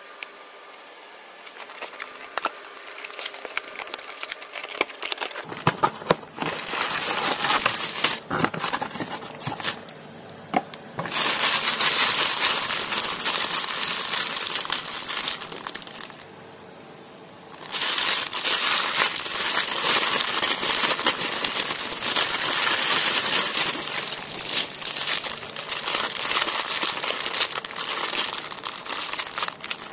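Clear plastic bags of toy bricks crinkling as hands handle them, with small clicks from the loose bricks inside. It starts quieter with a few scattered clicks, then crinkles in long stretches broken by two short pauses.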